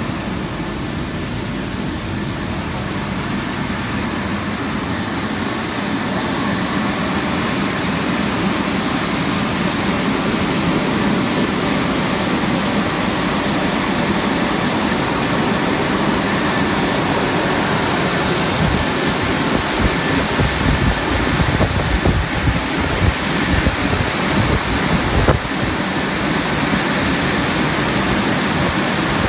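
Haitian XL200 automatic rollover car wash machine running over a car: a steady rushing noise of its rotating brushes, spray and motors. It grows a little louder, and uneven low rumbling comes in during the second half.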